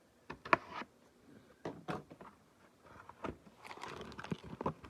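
Cardboard trading-card hobby box being handled and opened: a few sharp taps and clicks, then a stretch of rustling near the end.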